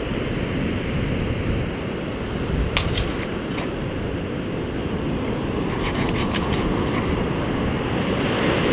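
Surf washing up a sand beach, under steady wind rumble on the microphone, with a few short clicks about three seconds in and again around six seconds.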